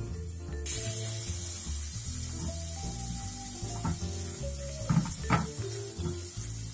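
Boneless chicken pieces and onions sizzling in a frying pan, partly cooked, the sizzle starting suddenly under a second in. A spatula knocks and scrapes against the pan a few times past the middle as the pieces are stirred, over background music.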